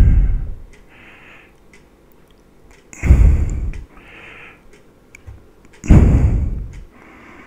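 A small RC toy truck carrying an action camera, driven across a hard floor in short spurts. Three short bursts of its electric motor and gears, with the rumble of the truck on the floor, come about three seconds apart. Fainter hissing can be heard between them.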